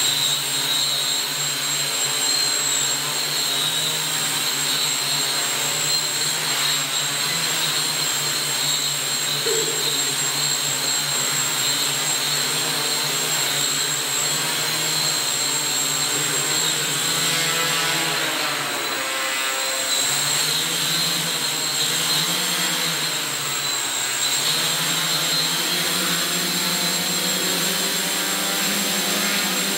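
Aeroquad quadcopter's electric motors and propellers running hard under the load of a person it is trying to lift: a steady, loud whir whose pitch wavers, sagging and recovering about two-thirds of the way through.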